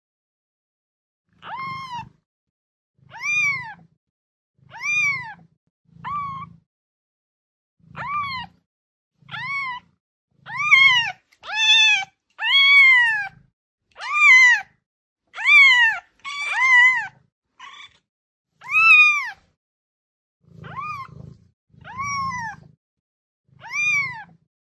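Kitten meowing over and over: a string of short, high meows about one every second or so, each rising then falling in pitch, with the loudest ones in the middle of the run.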